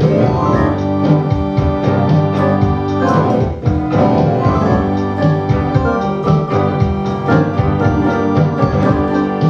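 Casio electronic keyboard being played: held chords with repeated note attacks, going on without a break.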